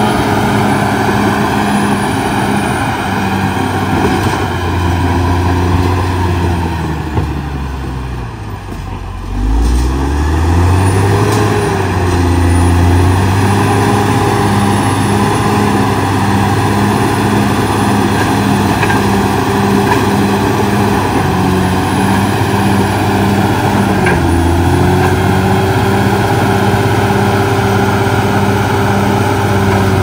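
Caterpillar D6R XL crawler bulldozer's diesel engine running hard as it works. Its pitch sags for a few seconds about a third of the way in, then climbs back, and dips briefly once more near the end.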